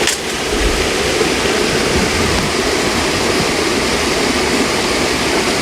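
Creek water pouring over a waterfall, a steady rush of falling water.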